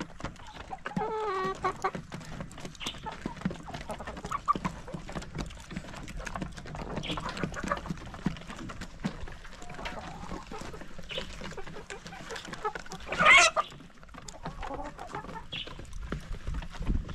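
Hens clucking as they feed from a wooden trough of chopped vegetables, with a steady patter of beaks tapping against the wood. A drawn-out wavering call comes about a second in, and a loud, sharp squawk comes about three-quarters of the way through.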